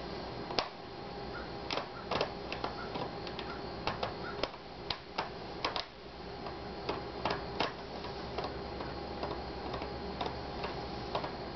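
Irregular small clicks and ticks of a screwdriver working the small screws at a laptop's screen hinge, over a steady background hum.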